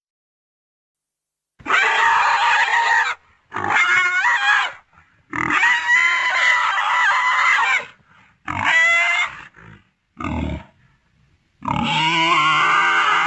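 Synthetic dinosaur calls made as Heterodontosaurus sound effects: six separate calls with short silences between them. The calls run from under half a second to about two and a half seconds, and the last and longest has a wavering pitch.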